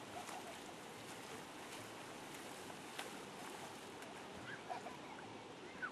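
Faint steady wash of river water with light splashing from people swimming, and a few brief faint cries near the end.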